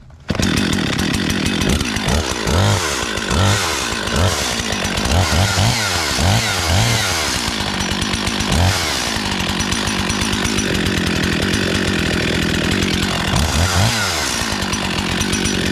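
Husqvarna 55 Rancher two-stroke chainsaw engine running, its throttle blipped again and again. The pitch rises and falls several times in the first half, runs steadier, then is revved once more near the end.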